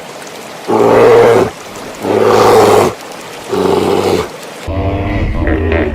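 A large animal's loud roaring call, given three times, each just under a second long, with short pauses between. About four seconds in, a different, choppier pitched sound takes over.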